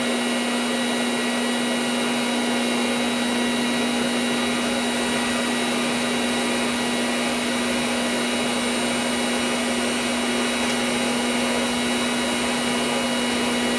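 Blacksmith's forge running with its air blast on, a steady rushing noise with a constant hum, while a wrought-iron piece heats toward welding temperature.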